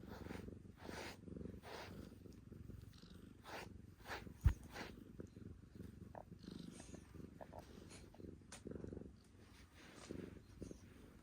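Male calico cat purring steadily while being brushed, the brush strokes rasping through its fur about twice a second, with a single sharp thump about four and a half seconds in.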